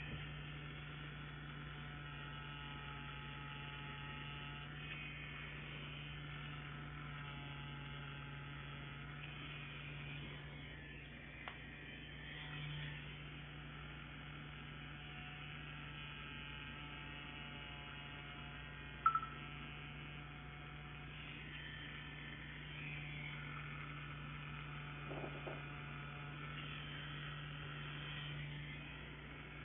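Solong CNC Q5 wireless rotary tattoo pen running with a steady low buzz as it works. A single sharp click comes about 19 seconds in.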